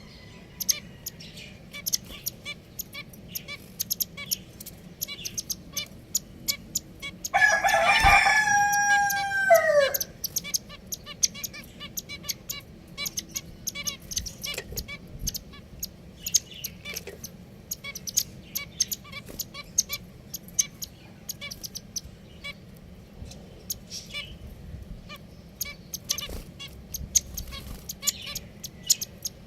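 Pet finches chirping busily in quick, high notes. About seven seconds in, a rooster crows once, long and loud, falling in pitch at the end.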